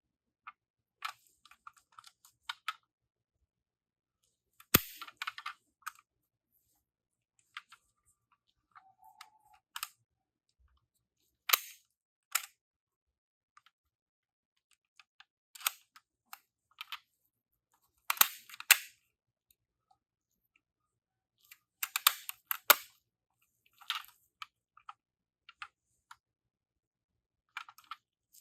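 Die-cast toy cars clicking and clattering in scattered sharp clacks and short rattles, with a few louder clacks spread through.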